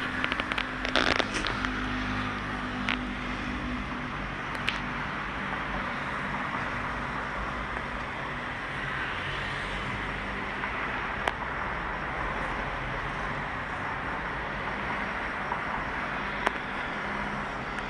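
Busy street traffic: a steady wash of engine hum and tyre noise from passing motorbikes and cars. A few brief sharp clicks stand out, a cluster of them about a second in.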